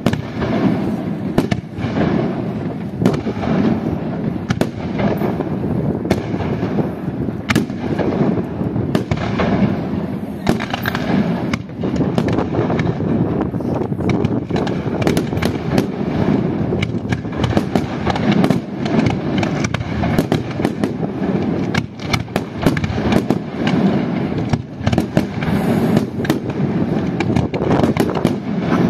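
Fireworks display going off continuously: a dense, unbroken barrage of booming bursts with many sharp cracks and bangs layered on top.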